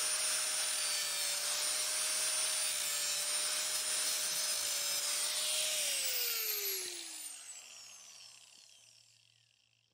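Four-and-a-half-inch angle grinder running against a motorcycle frame, grinding open a crack at the kickstand mount before welding. It is switched off about six seconds in, and its whine falls in pitch and fades as the disc spins down.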